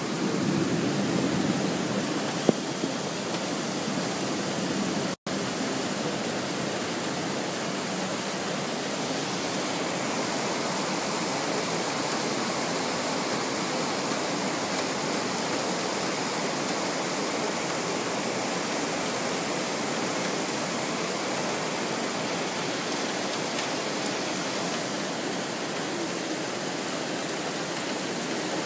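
Heavy rain pouring down in a steady, unbroken hiss.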